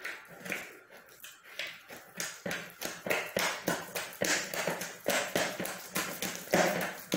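Bread dough being kneaded by hand in a plastic bowl: repeated pushes and slaps of the dough, about two a second, growing louder about halfway through.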